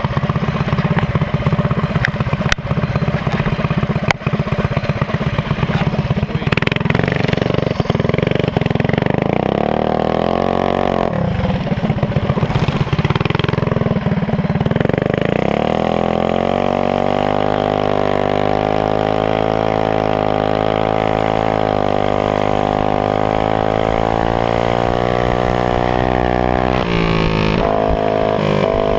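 Minibike engines idling unevenly. About halfway through, the camera bike's Honda GX160 single-cylinder four-stroke revs up and then holds a steady high pitch at speed, dipping briefly near the end.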